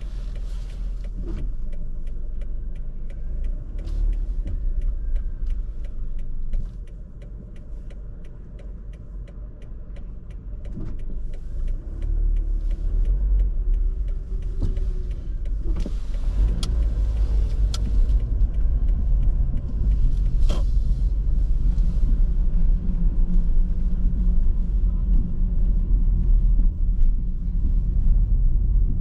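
Car cabin sound: low engine and road rumble as the car waits at a stop and then pulls away, the rumble growing stronger as it picks up speed. A regular ticking runs through the first several seconds and stops about six seconds in.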